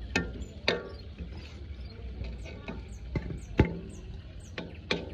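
A perforated metal skimmer knocking and scraping against the kazan and a serving plate as plov is dished out. There are four sharp clinks, the loudest about three and a half seconds in, over a low steady rumble.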